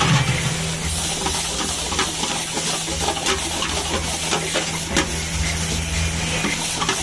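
Paneer bhurji sizzling in a pan over a gas flame, with a steel ladle scraping through it and knocking against the pan a few times as it is stirred. A low steady hum runs underneath.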